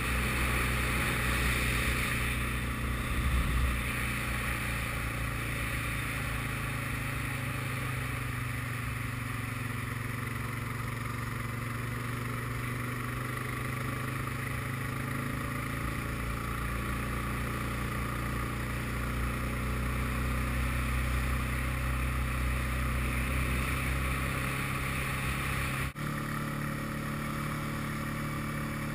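ATV (quad bike) engine running steadily under way, with a constant rush of noise over it. About 26 seconds in the sound drops out for an instant, and afterwards the engine note sits a little higher.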